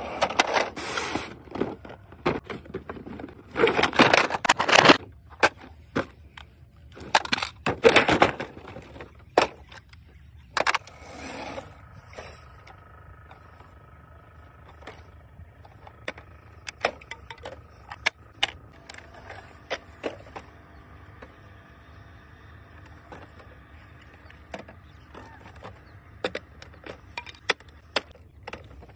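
Plastic RC toy buses with their small wheels rolling on asphalt, in four loud bursts of gritty rolling noise over the first twelve seconds. After that, hands handle the plastic toy buses, giving scattered light clicks and knocks.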